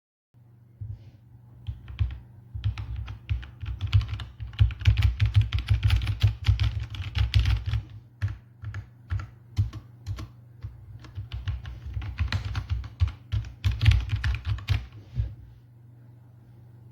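Fast typing on a mechanical keyboard, likely the HyperX Alloy Origins Core with linear HyperX Red switches: dense runs of clacking keystrokes that thin out briefly about eight seconds in and stop near the end, over a low steady hum.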